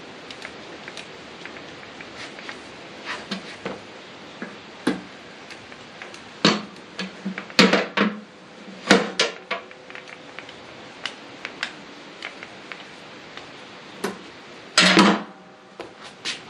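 Lever-action grease gun being pumped on the steel mower deck's pulley grease fittings: irregular metallic clicks and clanks, with a louder clatter about fifteen seconds in.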